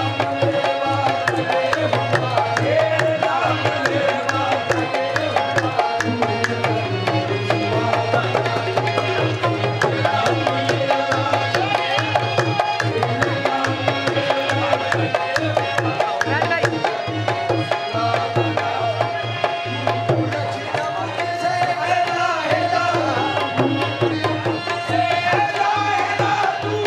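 Qawwali music carried by tabla drumming in a fast, steady rhythm under held melodic notes, with no pause.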